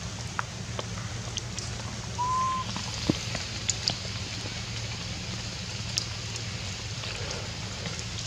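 Forest ambience after rain: a steady hiss with a low hum under it and scattered drip-like ticks. A single brief, clear whistle-like note sounds about two seconds in.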